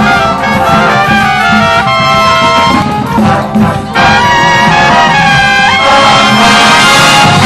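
A marching corps brass section playing loud, full chords, with trumpets leading on held and moving notes and a brief drop in loudness about three to four seconds in.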